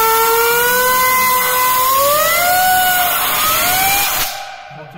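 Compressed air from a blow gun hissing onto a turbocharger's wheel, spinning it with a whine that rises and wavers in pitch as the air is aimed at the blades. The air cuts off about four seconds in and the hiss stops.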